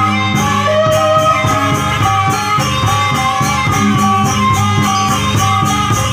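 Javanese traditional ensemble music: a bamboo suling flute playing a held, sliding melody over a steady beat of percussion.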